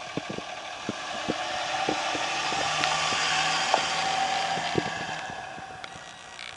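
2007 Dodge Ram 2500's 5.9-litre Cummins turbo-diesel inline-six driving past: it grows louder for about three seconds, then fades as the truck drives away.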